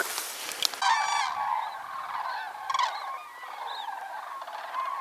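After a brief rustle, a flock of wild geese honks in flight, many calls overlapping. The calls are loudest about a second in and go on more faintly after that.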